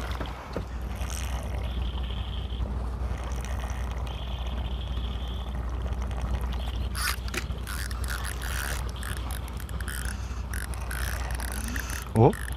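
A boat's engine drones low and steady. From about halfway in, a baitcasting reel gives irregular sharp mechanical clicks.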